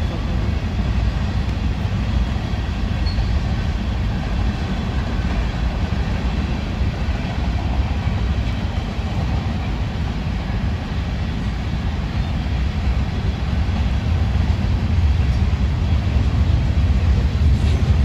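Freight cars of a manifest train rolling past, a steady rumble of wheels on rail.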